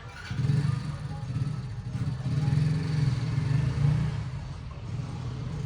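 A motor vehicle engine running, a low rumble that starts about a third of a second in and wavers in loudness.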